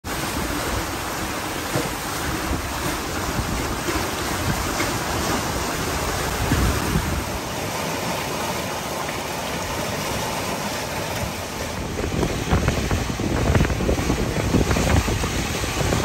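Water rushing and splashing along the hull of a Gunboat 68 sailing catamaran under way, with wind buffeting the microphone. It grows a little louder near the end.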